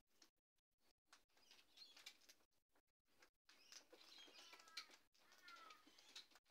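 Faint, sparse bird chirps and a few short whistled calls in the second half, over soft scattered clicks of a sulphur-crested cockatoo's beak picking through seed in a plastic tub.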